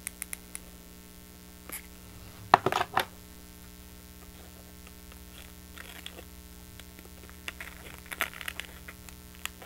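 Glued cardstock pieces being handled and pressed together by hand: scattered light clicks and rustles, with a louder cluster of sharp crackling taps about two and a half seconds in, over a steady low hum.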